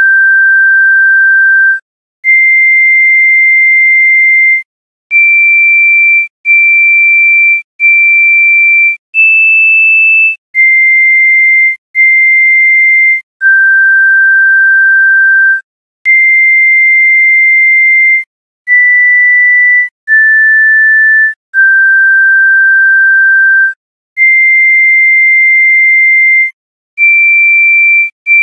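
A slow, high-pitched melody of pure electronic sine-wave tones, one note at a time. About fifteen notes, each held for one to two and a half seconds, are separated by brief silent gaps.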